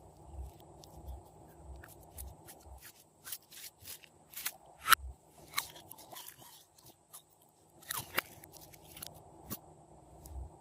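Glossy slime being squeezed and stretched by hand, giving sticky crackling clicks and pops in clusters, with a soft low squish repeating under them.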